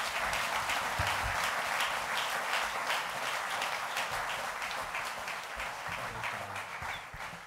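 A large audience applauding: many hands clapping densely and steadily, fading near the end.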